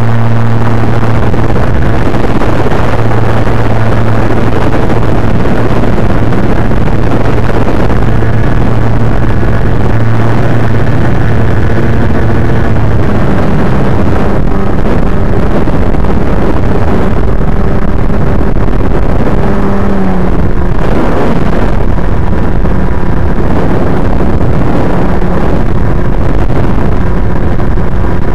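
Loud, steady rush of wind with the hum of an FPV plane's electric motor and propeller, picked up by the onboard microphone. The motor's hum changes pitch a couple of times as the throttle changes.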